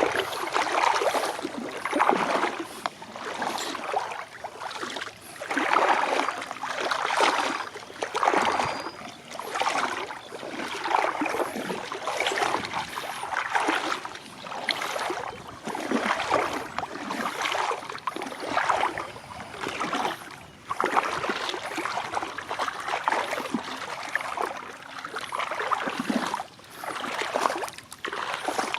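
Water splashing and sloshing in irregular surges every second or two.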